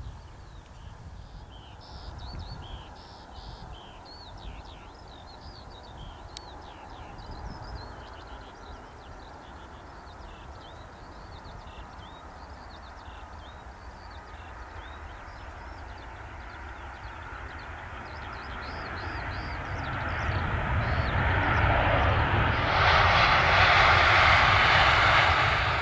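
Boeing 737-800's CFM56 jet engines: a low distant rumble that swells from about two-thirds in into a loud jet roar as the airliner lands and rolls past on the runway, loudest near the end. High chirping calls are heard over the first half.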